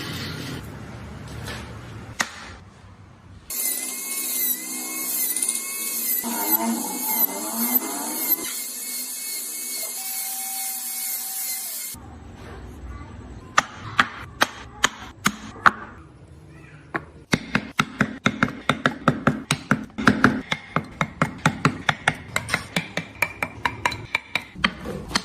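Wood-carving tools at work. A power tool runs steadily for several seconds, its pitch wavering slightly. Then comes a quick run of sharp taps and cuts on wood, several a second.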